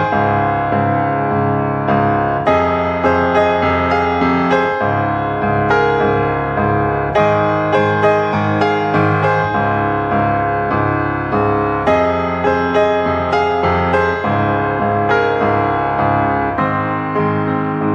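Background piano music, with notes struck one after another over held chords.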